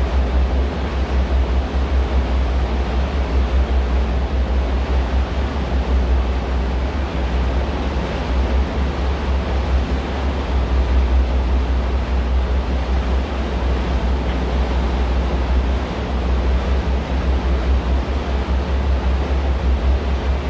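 Tour boat under way: a steady deep rumble with an even rushing noise of the engine and the water.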